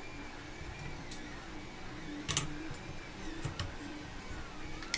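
Stepper motors of a running 3D printer singing in tones that glide up and down as the print head moves, over a steady hum. Several sharp clicks from parts being handled, the loudest about two seconds in.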